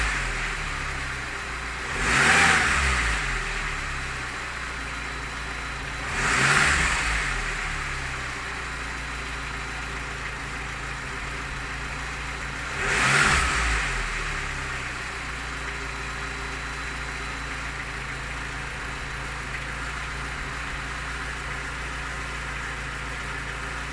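Lada Niva's four-cylinder engine idling, blipped three times with the throttle into short revs that fall back to idle, then running steadily. It has a knock whose cause the owner does not know.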